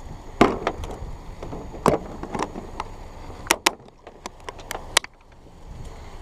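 Irregular sharp knocks and clicks, like gear being handled, over a steady low rumble.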